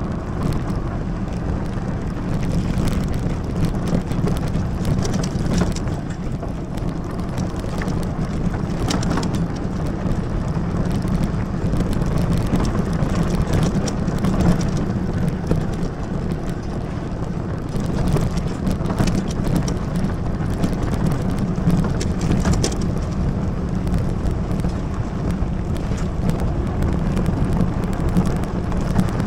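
Wind rumbling on the microphone of a fat-tyre electric bike's action camera, with the bike's 26x4 tyres crackling and ticking over a rough gravel trail.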